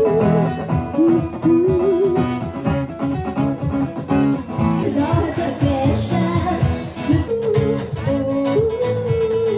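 A song with a singing voice and guitar, cut off abruptly at the end.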